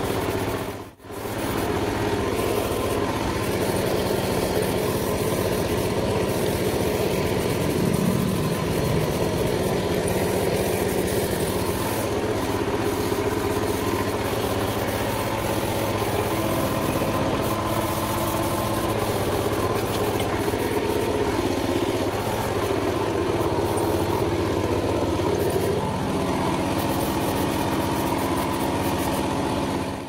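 A combine harvester's engine running steadily at an even speed, with a brief drop in sound about a second in.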